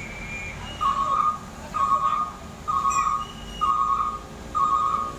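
Heavy equipment's electronic warning beeper sounding even beeps about once a second, each about half a second long, starting about a second in.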